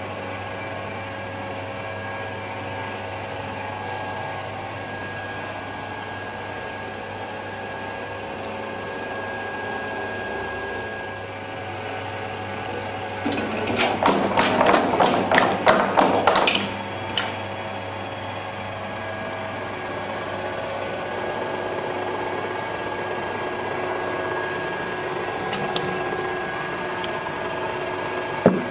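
Slitmaster electric French fry cutter running with a steady motor hum. About 13 seconds in, a few seconds of rapid, loud clattering knocks as potatoes go through the spinning cutter, then the steady hum again.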